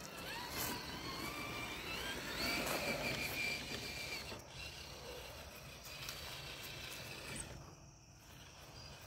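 RC crawler's small electric motor and gear drive whining faintly as the truck drives across grass, the pitch rising and falling with the throttle for a few seconds, then quieter.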